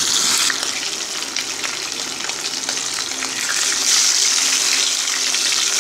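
Whole pomfret fish sizzling as they shallow-fry in hot mustard oil in a wok, a dense steady hiss with fine crackling and spitting. It grows a little louder about four seconds in.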